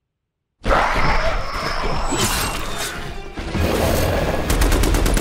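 Film action sound design: after a moment of dead silence, a sudden loud crash as a blast of dust and debris hits, with deep rumble under a music score. Near the end a rapid run of sharp cracks, about ten a second, like automatic gunfire, begins.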